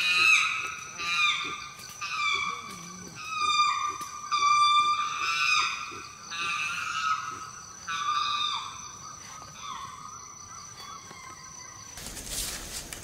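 Wild animal calls in forest: a string of high, pitched calls, many gliding downward, about a second apart, over a steady high-pitched whine. About a second before the end they stop abruptly and give way to a noisy hiss.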